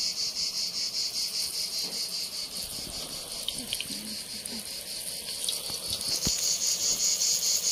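Insects chirping in a steady, fast, high-pitched pulsing chorus, over the faint sizzle of dough balls frying in hot oil. A few small clicks of the spoon come a few seconds in.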